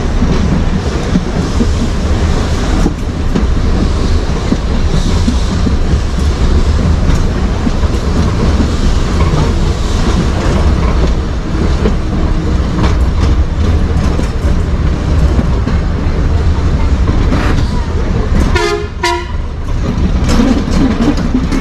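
Vintage electric tram running along the track, heard on board: a steady loud rumble of wheels and motors on the rails, with scattered clicks. Near the end come two short pitched warning sounds.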